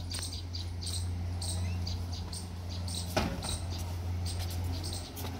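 Short high chirps repeating every fraction of a second over a steady low hum, with one sharp knock about three seconds in.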